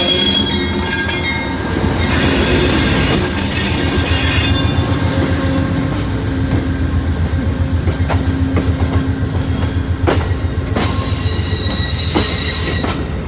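Amtrak passenger train rolling slowly past at close range: the GE P42DC diesel locomotive goes by first, then Amfleet coaches. The wheels squeal in high, steady tones during the first few seconds and again near the end, over a steady low rumble, with a run of regular clicks from the wheels over rail joints in the second half.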